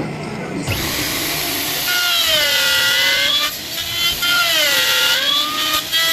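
Electric plunge router running and cutting into a wooden door-frame piece. Its motor whine drops in pitch twice as the bit takes load in the wood, then recovers each time.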